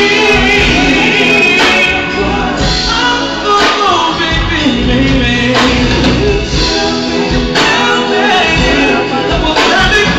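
Live band playing loudly, several vocalists singing into microphones over electric guitars and drums.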